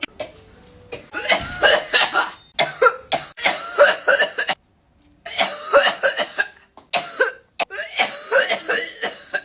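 A person coughing hard and repeatedly after a long vape hit. The coughing starts about a second in and comes in three runs, with short breaks about halfway through and just before the end.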